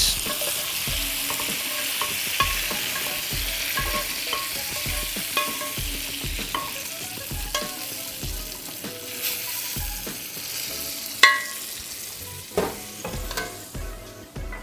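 Hot pan food sizzling in a steady high hiss that fades toward the end, with a soft regular beat about once a second and a sharp click about 11 seconds in.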